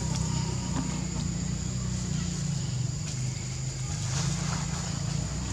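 A steady low droning hum with a constant thin, high-pitched whine above it, and a few faint clicks.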